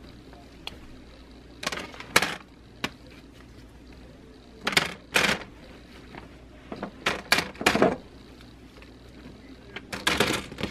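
Plastic clothes hangers clicking and clattering in short bursts as dresses are slipped off them and set down on a counter, with fabric rustling. Six or so separate bursts, the busiest near the end.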